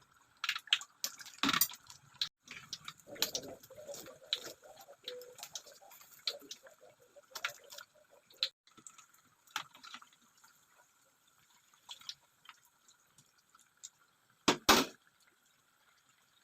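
Liquid being handled in a kitchen: splashing and dripping with scattered light clinks and knocks, and one louder knock a little after 14 seconds.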